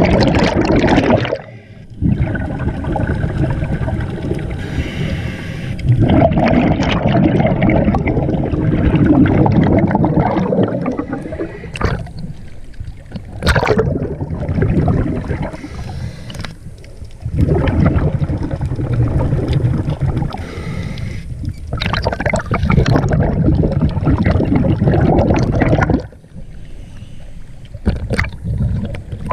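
Scuba diver breathing underwater through a regulator: exhaled bubbles come in long noisy bursts every few seconds, with short quieter gaps between them. Near the end the camera breaks the water surface.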